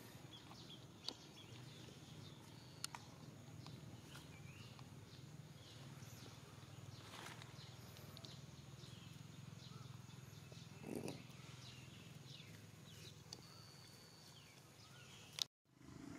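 Near silence: faint outdoor ambience, a low steady hum with faint high bird chirps and a few soft clicks. It cuts out abruptly near the end with a sharp click.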